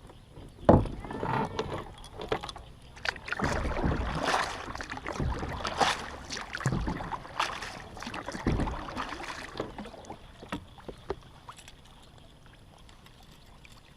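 Handling noise in a fishing kayak: hollow low knocks and rustling as gear is moved about and a cast is made, in irregular bursts; after about ten seconds it quietens to a few light ticks.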